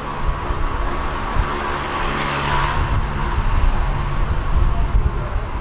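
A vehicle passing; its noise swells to a peak about two and a half seconds in and then fades, over a steady low rumble.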